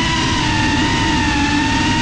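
FPV quadcopter's brushless motors and propellers whining at a nearly steady pitch that eases slightly lower, over a dense rushing hiss.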